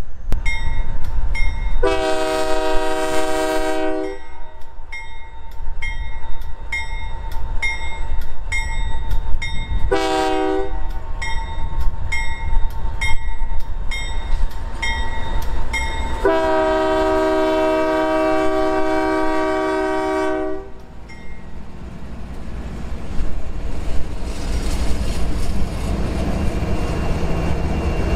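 Union Pacific freight locomotives passing close by, sounding a multi-note horn three times: a blast of about two seconds, a short one, then a long one of about four seconds. A bell rings about twice a second through the first half. The diesel engines and wheels keep up a low rumble, which grows again as the trailing units pass near the end.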